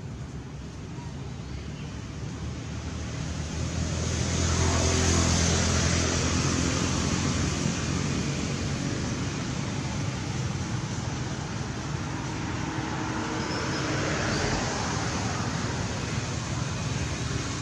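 Motor vehicle engine running steadily amid road traffic, growing louder about four seconds in and staying loud.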